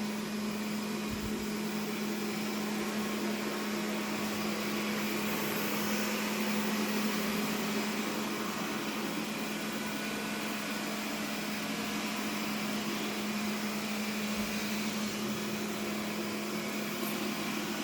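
First-generation Xiaomi robot vacuum running in its automatic cleaning mode: a steady motor and fan hum with one constant low tone.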